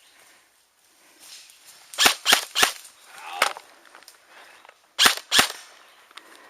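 Airsoft gunfire: three sharp shots in quick succession, a fainter one, then two more a couple of seconds later.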